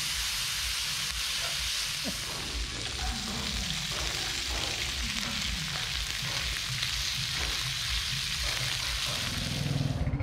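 Meat slices sizzling steadily on a hot electric griddle; the frying hiss cuts off suddenly near the end.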